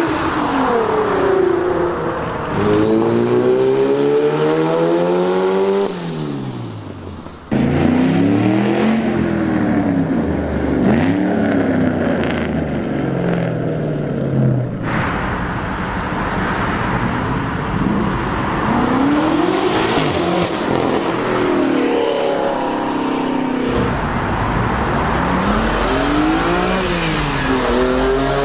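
Sports cars accelerating past one after another in several separate passes, among them a Nissan GT-R and a Ford Mustang. Each engine note climbs in pitch, then drops back at a gearshift before climbing again.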